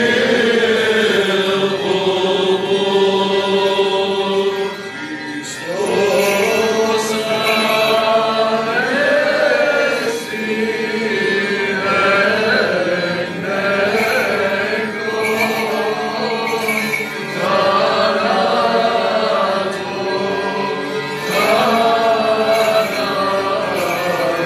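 Men's choir chanting a Byzantine Orthodox hymn: a melody sung in phrases over a steady held low drone, with a brief break about five seconds in.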